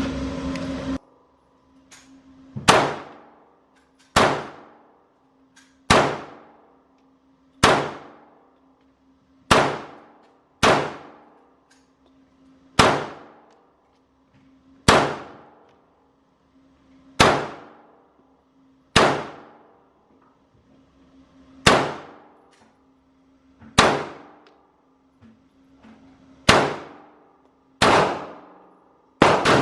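Keltec PMR30 .22 Magnum pistol fired slowly, shot after shot, about fifteen sharp cracks roughly one every one and a half to two seconds. Each crack rings out in the indoor range's echo. A faint steady low hum runs underneath.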